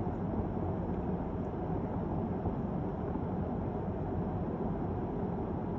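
Steady low rumble inside a car's cabin with the car running while parked.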